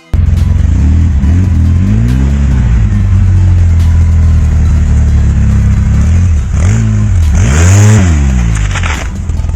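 Off-road vehicle engine running hard and revving, its pitch rising and falling several times. A short burst of hiss comes about three-quarters of the way through.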